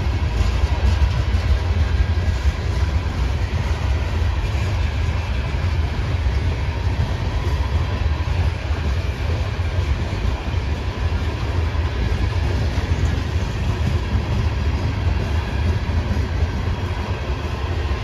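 Freight cars of a passing train, centerbeam flatcars loaded with lumber and then boxcars, rolling by at close range: a steady, low rumble of steel wheels on the rails.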